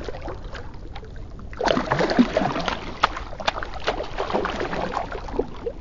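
Shallow pond water splashing and sloshing at a muddy bank as a released largemouth bass thrashes off. It comes as a run of irregular splashes starting about a second and a half in.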